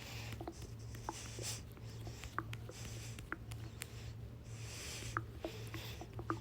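Stomach growling and gurgling: many short, irregular bubbly pops and squeaks, a sloshing sound. Under it runs a steady low hum, with soft hissing swells about every second and a half.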